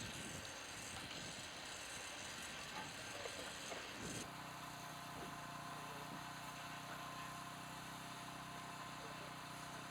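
Steady engine hum with several even low tones, setting in abruptly about four seconds in after rough, uneven noise.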